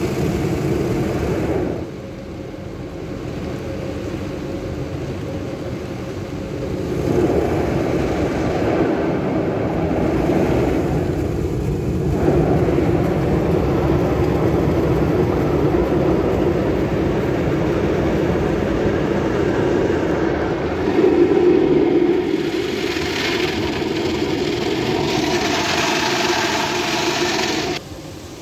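Automatic car wash machinery running with a steady whir. It changes in level several times as the wash moves through its stages, turns brighter and hissier toward the end, then drops off abruptly.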